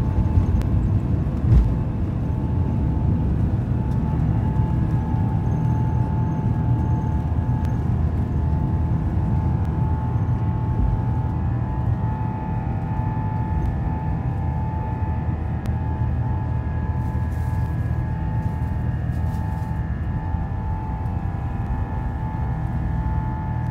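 Airbus A350-900's Rolls-Royce Trent XWB engines at takeoff thrust, heard from inside the cabin: a loud, steady rumble through the takeoff roll with a single thump about a second and a half in. A steady engine whine builds from a few seconds in and holds through liftoff and the initial climb.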